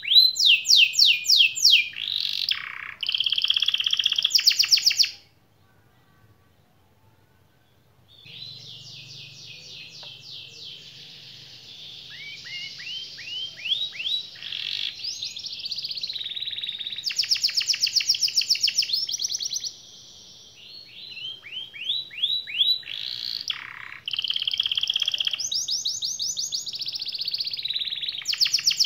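Yellow domestic canary singing a long, fast song of rolling trills and rapidly repeated high notes. About five seconds in the song stops for roughly three seconds, then starts again, softly at first, and carries on without a break.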